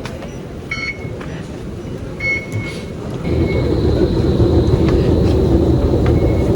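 Steady rumble of a vehicle in motion, growing louder about three seconds in, with a thin high whine over it from then on. Two short high beeps sound in the first three seconds.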